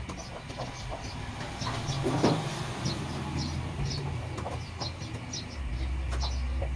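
A low rumble like a vehicle engine, stronger and deeper in the last second, under a steady run of short high chirps about two a second.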